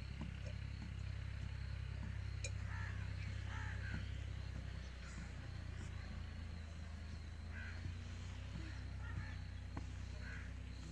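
Outdoor ambience: a steady low rumble with scattered short bird calls, and a single sharp click about two and a half seconds in.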